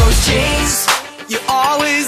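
Pop song playing, with its deep bass and beat dropping out under a second in.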